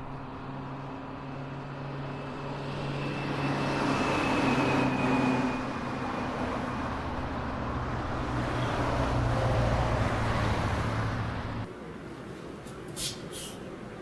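Road vehicle noise, a steady hum that swells twice and then cuts off abruptly near the end.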